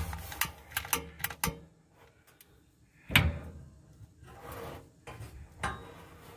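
Clicks and knocks of a long-nosed butane lighter being worked at the oven pilot of an RV propane stove. There is a quick run of clicks in the first second and a half, a louder knock about three seconds in, and a fainter one near the end.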